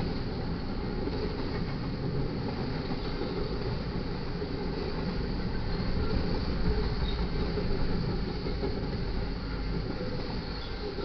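Intermodal freight train rolling past: a steady rumble and rattle of wheels on rail, a little louder partway through, with no horn.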